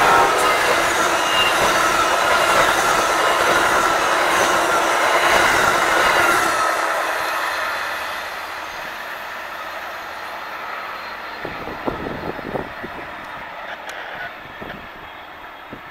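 A train rolling past on the rails, its wheels squealing and the cars clattering, then fading away after about six seconds as it leaves.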